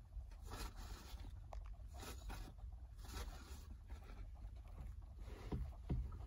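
Faint scraping and rustling as leather loafers shift against a rubber car floor mat, over a low steady rumble, with one louder scuff about six seconds in.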